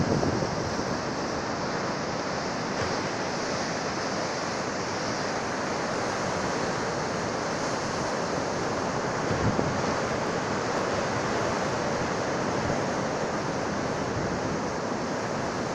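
Rough sea, with waves breaking on the beach in a steady rush of surf.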